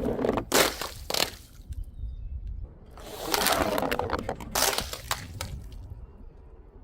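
Brittle things breaking and crunching: a loud crunch at the start, sharp cracks about half a second and a second in, a longer crunching spell from about three seconds, and two more sharp cracks near five seconds.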